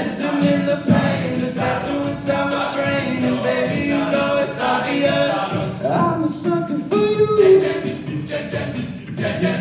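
All-male a cappella group singing in close harmony, with a vocal percussionist beatboxing a steady beat underneath.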